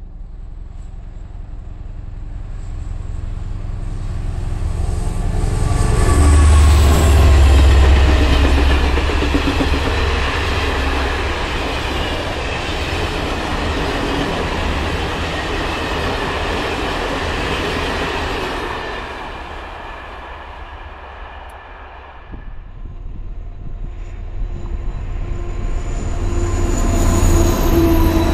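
A CC 72000 diesel-electric locomotive passes hauling a train of coaches. Its engine is loudest a few seconds in, then the coaches roll past and fade out by about twenty seconds in. Near the end a second diesel train, a pair of BB 67400 locomotives, approaches and grows louder.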